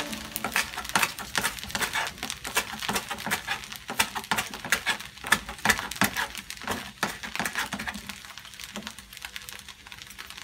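Kitchen knife chopping spring onions on a plastic cutting board: quick, irregular taps several times a second, growing fainter over the last couple of seconds.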